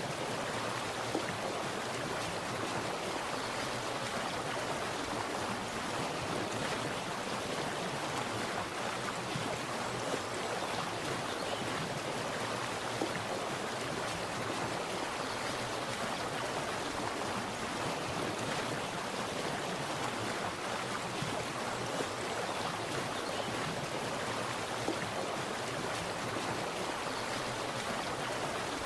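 Water splashing and running in a steady, even rush, without pauses or surges.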